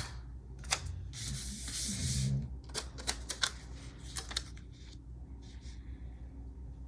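Planner sticker and paper being handled: scattered light clicks and taps, and a papery rasp lasting about a second, starting about a second in.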